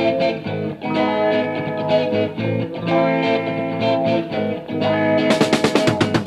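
Opening of an early-1970s psychedelic rock record: a guitar playing a repeated chord figure. Near the end comes a run of quick, sharp strokes.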